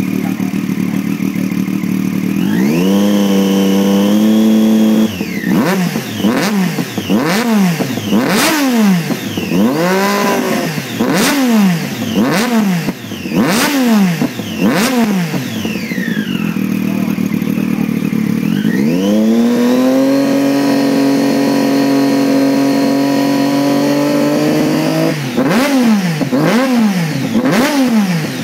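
Triumph Daytona 675's three-cylinder engine, through an Arrow race exhaust, revved while the bike stands still. It rises from idle to a held high rev for a couple of seconds, then gives a long string of quick throttle blips with sharp cracks as the revs drop. A second long held rev follows, then more blips near the end.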